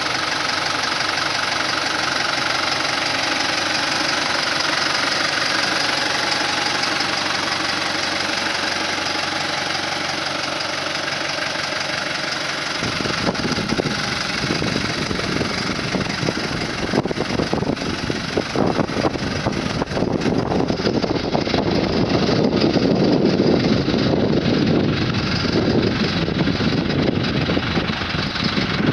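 New Holland T4.75 Powerstar tractor's diesel engine running at a steady idle. About 13 seconds in, the sound turns suddenly louder and rougher, with an uneven rumble.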